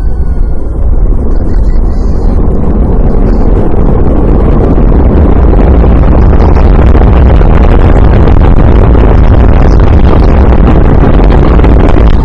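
Deep, continuous rumble from the Antares rocket, building over the first second and then holding steady and very loud.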